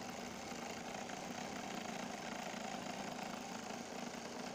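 Sewing machine running steadily at speed, stitching a seam along the edge of buckram-stiffened blouse fabric.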